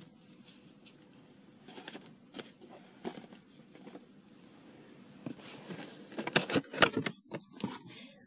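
A cardboard box of trading cards being handled and opened: scattered light clicks and rustles of card and cardboard, busier and louder in the last few seconds.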